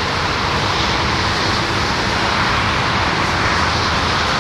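Steady vehicle noise: a continuous hissing roar of engines with a low rumble underneath, unchanging throughout.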